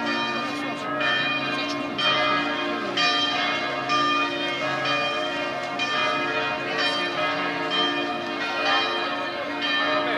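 Full festive peal of the Amalfi Cathedral bell tower: several church bells ringing together, their tones overlapping into a continuous ringing, with a fresh strike about every second.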